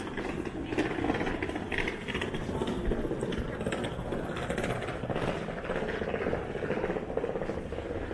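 Pedestrian street ambience: footsteps on cobblestones and indistinct voices of passers-by.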